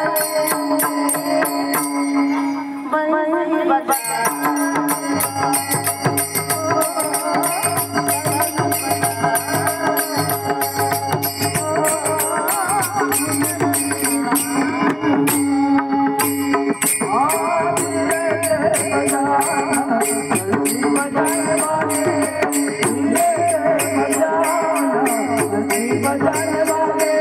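Several bamboo flutes (bansuri) playing a wavering folk melody in unison over a steady low note, with a fast, even percussion beat.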